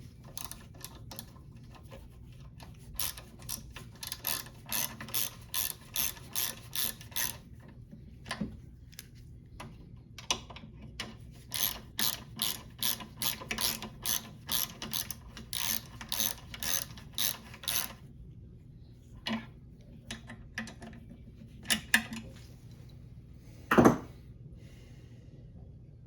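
Ratchet wrench clicking in two long runs of even strokes, about two a second, as bolts are tightened; a single knock near the end is the loudest sound.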